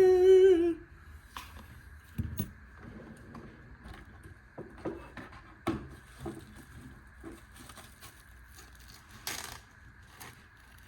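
Small metal clicks and taps of a pocket multi-tool being handled and its folding parts worked, after a short pitched vocal sound in the first second. A faint steady high tone runs underneath.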